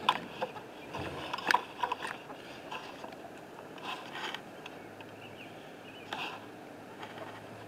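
Wind on the microphone with scattered short clicks and a few brief soft calls from backyard chickens.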